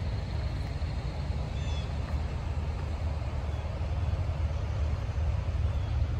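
International chip truck's engine running steadily at idle, a low even rumble. A bird chirps briefly about one and a half seconds in, and faintly again near the end.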